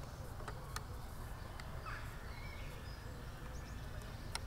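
Outdoor ambience: a steady low rumble, a few short bird calls, and a few sharp clicks, the clearest about a second in and near the end.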